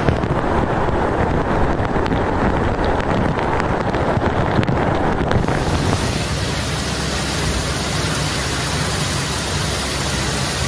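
Heavy rain with rushing, splashing floodwater as a car ploughs through a flooded road. About five seconds in, the sound changes to the brighter, steady hiss of a downpour falling onto standing floodwater.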